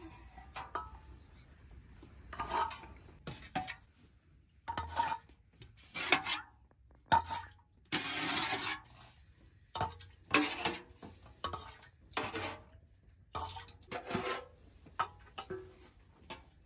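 Kitchen handling sounds at an aluminium pot: the lid and a spoon clink against the metal, with splashing as frothy white liquid is poured from a terracotta clay jar, the longest pour about eight seconds in. There is a dozen or so short clatters and splashes.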